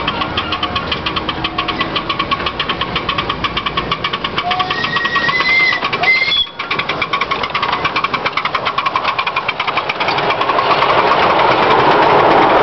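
Miniature live-steam locomotive chuffing with rapid, even exhaust beats as it approaches. It grows louder and noisier over the last couple of seconds as the train passes close by.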